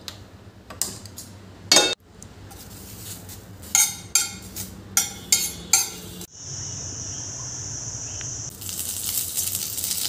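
A few clicks and a loud metal clank, then about six ringing clinks of a steel spatula against a stainless steel frying pan. A steady high hiss follows, and near the end oil starts to sizzle as it is poured into the hot pan.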